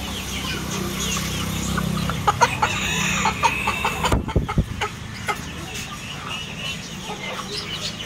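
Aseel chickens clucking and calling. There is a quick burst of knocks and wing-flapping about halfway through.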